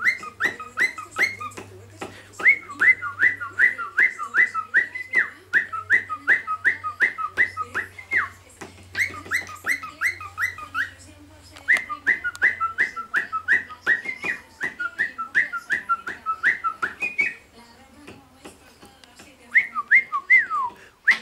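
Cockatiel whistling a learned phrase: quick runs of short down-slurred whistle notes, about three a second, broken by several pauses, with light clicks throughout.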